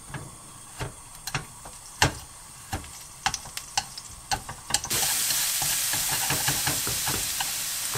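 Wooden chopsticks clicking and scraping against a nonstick wok as a lump of minced garlic is broken up in cooking oil. About five seconds in, a loud steady sizzle starts suddenly as the garlic spreads into the hot oil and fries, with the chopstick clicks going on over it.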